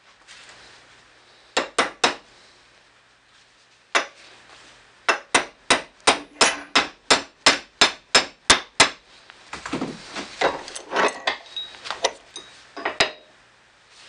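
A hammer driving a steel pin into the cast-steel lower door hinge of a 1967 Ford Mustang: a few separate blows, then a quick even run of about fifteen strikes at roughly four a second, followed by irregular metal knocks and clatter.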